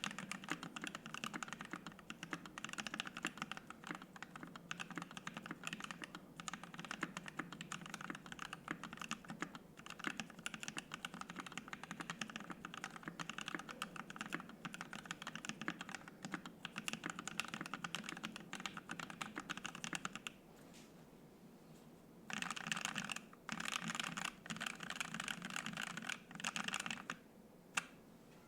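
Custom 65% mechanical keyboard with lubed, filmed Alpaca linear switches on an FR-4 plate and PBT keycaps, typed on at a fast steady pace. About 20 seconds in the typing stops for a moment, then comes back in several short bursts, ending with a single keystroke.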